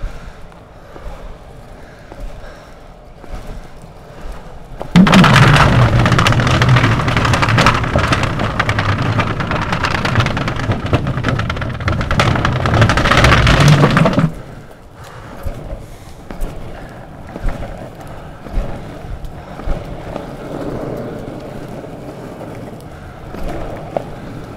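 Longboard wheels rolling along a path. About five seconds in a loud, dense rumble starts abruptly as the board runs onto the wooden plank deck of a footbridge, and it cuts off about nine seconds later. After that comes quieter rolling on a dirt path with occasional clicks.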